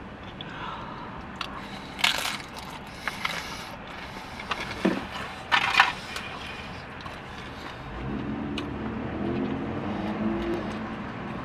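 Close-up chewing of a mouthful of food, with a few sharp crunches about two seconds in and again around six seconds. From about eight seconds a low vehicle hum builds up.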